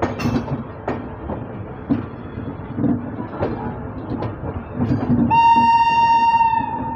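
Passenger coaches rumbling and clicking over the rail joints and points as the train moves off. A little past five seconds in, a locomotive horn sounds one long steady note, which dips slightly in pitch near the end.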